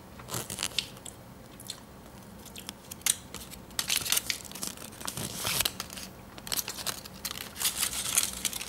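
Aluminium foil wrapper crinkling and a small plastic toy capsule being handled and opened, in irregular bursts of crackling rustles and clicks.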